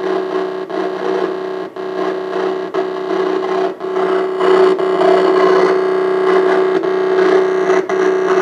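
Playback of a man's voice recorded as 4 kHz-sampled 8-bit PCM on an EPROM by a homemade digital recorder: the speech comes through gritty and distorted, hard to make out, over a steady droning tone and hiss.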